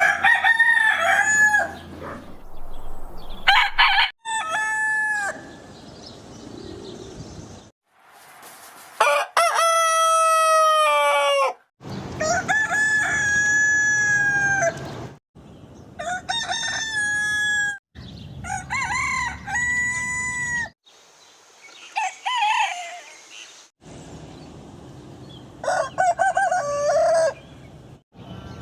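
Roosters crowing, about nine full cock-a-doodle-doo calls in a row, each a held, stepped call. The clips are spliced with abrupt cuts, so the birds and pitch change from one crow to the next.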